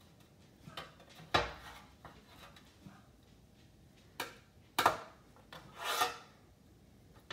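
Metal rotisserie spit rod and forks knocking and scraping as they are worked through a roast: a few sharp knocks, the loudest about five seconds in, and a short scraping rub about six seconds in.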